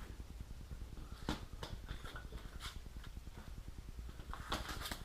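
Wires being handled and pushed through a car wiring harness: scattered light clicks and rustles, with a cluster of them near the end, over a steady low hum.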